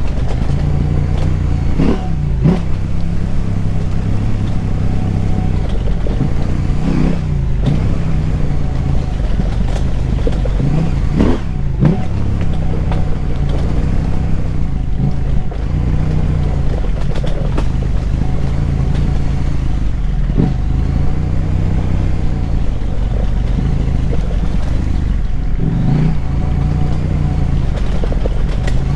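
KTM 890 Adventure R's parallel-twin engine through a Wings slip-on exhaust with the dB killer removed, under way at changing engine speed. Several short rev rises and falls break in along the way.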